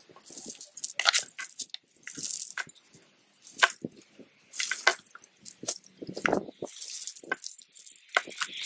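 Heavy steel chain clinking and rattling in short, irregular bursts as it is lifted and wrapped around a wooden fence post.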